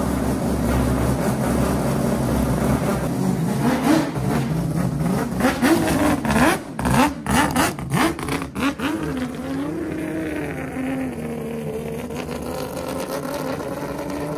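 Naturally aspirated six-rotor Wankel engine, built from three Mazda 13B two-rotor units, running in Pulse Performance's RX-7. It idles at first, is then blipped through a quick series of revs, each rising and dropping in pitch, and from about ten seconds in holds a steady note at low revs.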